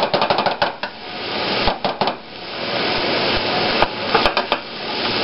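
Shredded beef and onions sizzling in a stainless steel frying pan over medium-high heat, with a spatula repeatedly knocking and scraping against the pan as the meat is spread out. The knocks come in quick clusters, in the first second, around two seconds in and around four seconds in.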